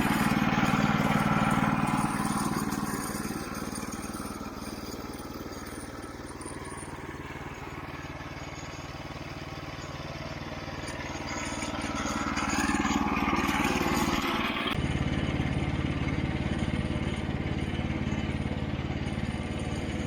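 Portable band sawmill's gasoline engine running steadily. It grows louder twice, near the start and again about 12 to 14 seconds in. About 15 seconds in, the higher part of the sound cuts off suddenly while the low engine hum carries on.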